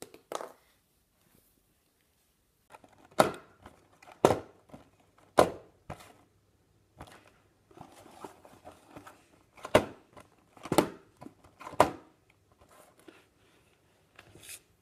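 Sharp knocks of small objects on a wooden floor, in two groups of three about a second apart, with softer handling and rustling between them.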